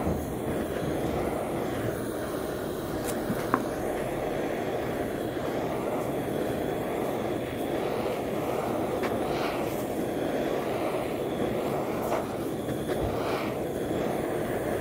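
Handheld gas torch flame running with a steady roaring hiss as it scorches a wooden coaster, with one sharp click about three and a half seconds in.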